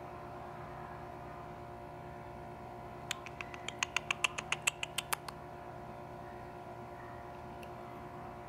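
A quick run of about fifteen sharp clicks, a little over three seconds in and lasting about two seconds, over a steady electrical hum.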